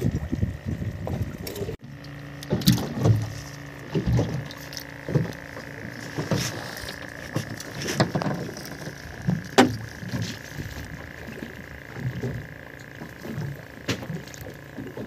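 Fishing boat on the water: a steady machine whine runs under irregular knocks and clunks from gear on deck.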